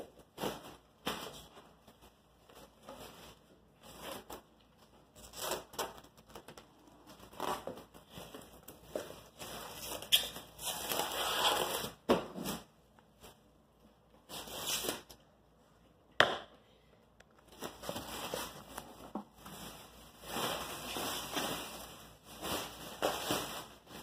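Clear plastic stretch wrap crackling and rustling in irregular bursts as it is pulled off the roll and wound around a large wooden birdhouse, with two sharp clicks midway.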